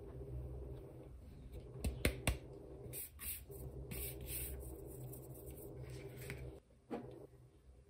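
Flour poured from a bowl into a plastic food processor bowl: a soft hiss of sliding flour, with a few light clicks of the bowl against the plastic about two seconds in and once more near the end.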